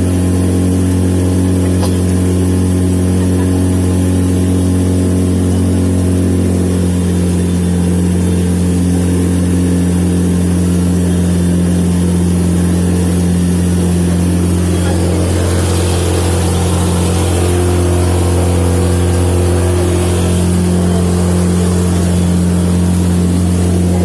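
Motorboat engine running steadily at a constant speed, a low, even hum.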